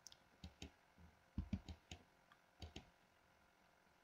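Faint, irregular clicks from a computer mouse and keyboard, about a dozen scattered through the few seconds, some with a dull low tap.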